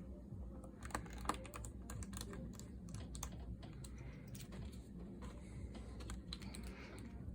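Irregular light clicks and taps on a Chromebook's plastic case and keyboard deck, the sharpest about a second in, over a low steady hum.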